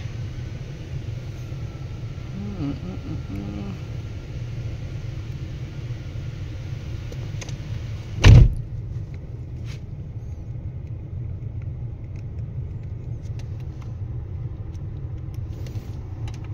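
2001 Chevrolet Impala's 3.4 L V6 idling steadily with a low rumble, running after a new thermostat went in to cure its failure to restart when hot. A single short, loud thump about eight seconds in.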